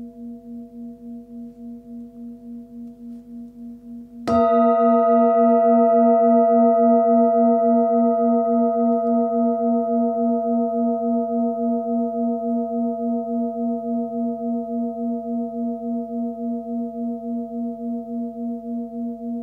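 Nepalese singing bowl, 19 cm across with a 236 Hz (A#) fundamental, ringing with a slow, even wobble in its hum. About four seconds in it is struck again: the strike brings in bright higher overtones that fade over the following seconds, while the deep tone keeps ringing.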